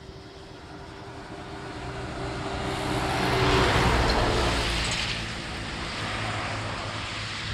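Engine noise of something passing by, growing louder to a peak about halfway through, then fading back to a steady lower level.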